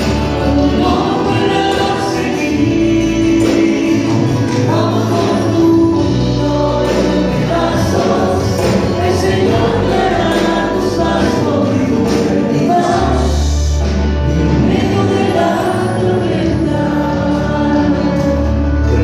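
Christian worship song sung by a group of singers with band accompaniment and a steady bass line, played over the hall's loudspeakers.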